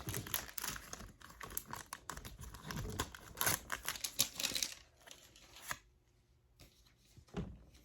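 Foil booster pack wrapper being torn open and crinkled, a dense crackling for the first four or five seconds, then quiet apart from a soft knock or two.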